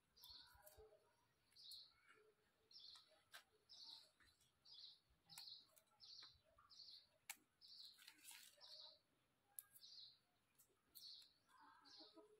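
A small bird chirping steadily, short high chirps about twice a second, all faint. Scattered faint snaps come from leafy vegetable stems being broken by hand.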